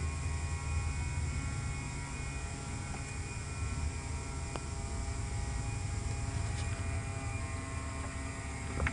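A steady low hum with a faint buzz over it, broken only by a couple of faint clicks.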